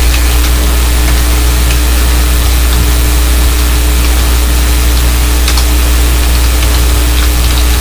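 Steady low hum with an even hiss, the constant background noise of a home screen-recording setup, with a few faint keyboard clicks.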